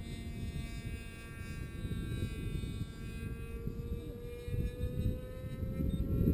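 Rossi .53 two-stroke glow engine with a tuned pipe, powering a model airplane in flight: a steady high-pitched whine whose pitch creeps upward toward the end. A low rushing noise runs underneath and grows louder near the end.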